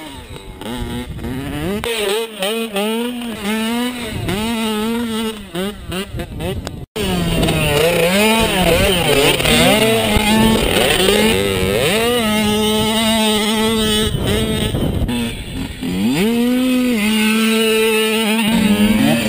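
Small dirt bike engine revving up and down, its pitch climbing and dropping again and again as it accelerates and shifts gears, with steady stretches at constant revs. The sound breaks off abruptly for a moment about seven seconds in, then resumes.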